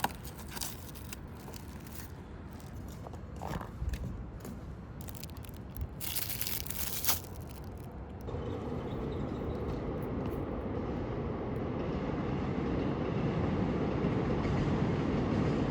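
Scattered sharp crinkles and clicks. Then, about eight seconds in, a steady rumbling noise starts and grows gradually louder.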